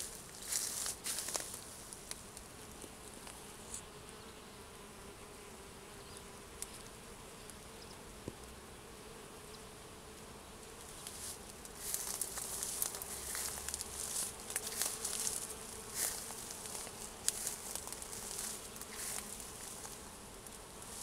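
Bees buzzing as they work the raspberry blossoms, a steady hum. Near the start, and more through the second half, louder crackly rustling of raspberry leaves brushing close to the microphone.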